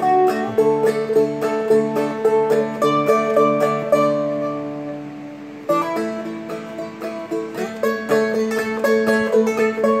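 Seagull Merlin M4 played in a clawhammer pattern: picked melody notes over strings left ringing as a drone. About four seconds in the picking stops and a chord fades out for a second and a half, then the picking starts again.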